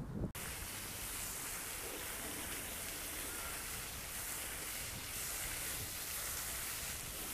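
Steady, even hiss of noise that starts abruptly just after the beginning and holds at one level throughout.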